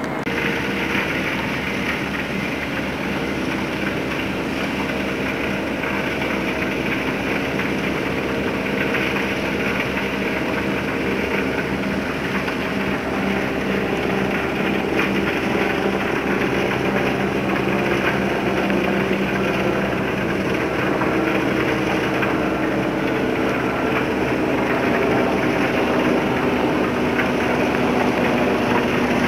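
A boat's engine running steadily, a low droning hum with a constant rush of noise over it.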